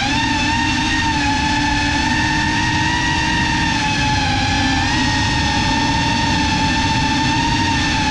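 Brushless motors and ducted propellers of a GEPRC CineLog35 cinewhoop FPV drone whining steadily in flight, heard from the GoPro on board, over a low rumble of prop wash. The pitch wavers with the throttle, dipping briefly about halfway through.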